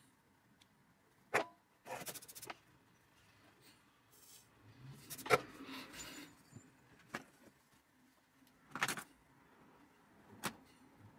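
Scattered sharp clicks and light taps of small tools and brass wire being handled at the workbench, with a quick run of clicks about two seconds in and a short rustle around the middle.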